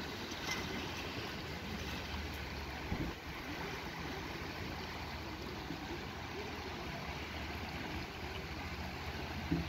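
A shallow river rushing steadily over gravel riffles, with a low rumble underneath. Two brief knocks come through, about three seconds in and near the end.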